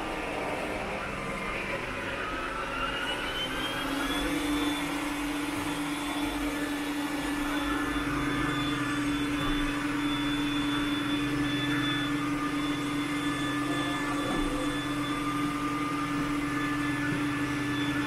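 Roomba S9+ robot vacuum running on carpet: its suction fan's whine rises in pitch about two to four seconds in, then holds steady with a hum. This is the stronger suction it runs on carpet.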